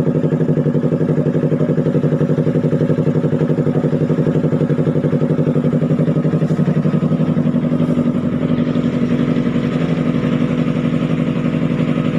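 Yamaha R3's parallel-twin engine idling steadily through an Austin Racing aftermarket exhaust (twisted elbow with resonator), with an even, fast-pulsing exhaust note.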